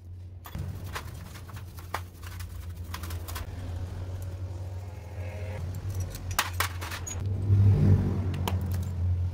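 Scattered metallic clinks and taps as a scooter carburettor body and a screwdriver are handled against a steel tray, with a denser, louder run of knocks a little before the end, over a steady low hum.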